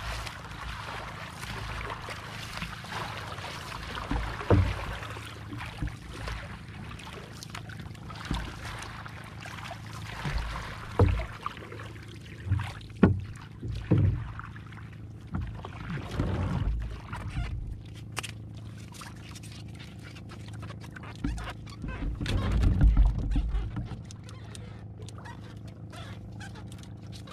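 Paddle strokes splashing water along a small outrigger canoe, with scattered knocks against the boat. About halfway through, the paddling stops and the splashing fades, leaving occasional knocks and light clicks.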